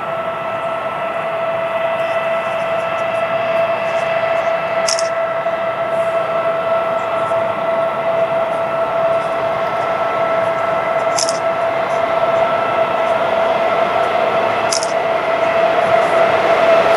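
Approaching electric locomotive giving a steady electrical whine that slowly grows louder as it nears the platform.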